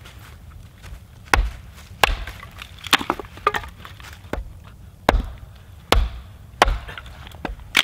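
Small axe chopping split red oak into smaller pieces on a log: a run of sharp chops, a little more than one a second.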